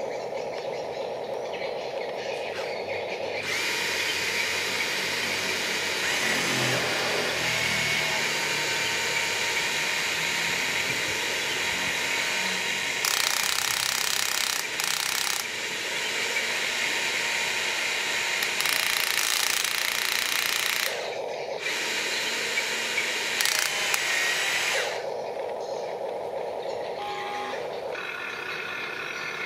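Small electric motors and gearing of a remote-control excavator whirring and grinding as it works. The sound turns louder and harsher a few seconds in, shifts several times, then eases back to a steadier whir near the end.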